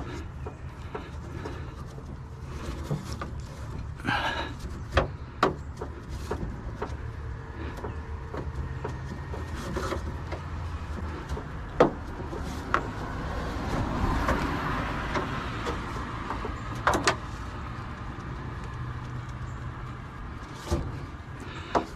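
Handling noise of a scrap load being lashed down with rope: scattered knocks, clicks and rustles over a steady low hum.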